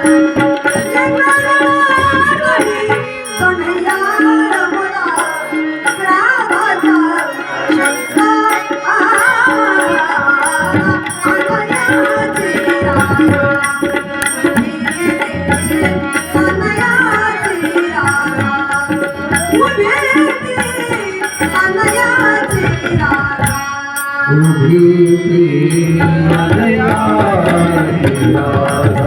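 A woman singing, accompanied by a mridang drum and small hand cymbals keeping a steady rhythm. A held low note comes in near the end.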